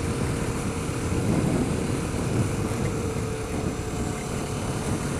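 Kawasaki Ninja 650R's parallel-twin engine running steadily under wind and road noise on the helmet microphone.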